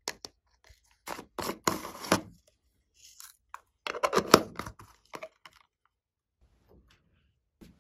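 Slime being worked by hand, giving sticky crackling and popping clicks in two dense bursts, about a second in and about four seconds in, with scattered single clicks between.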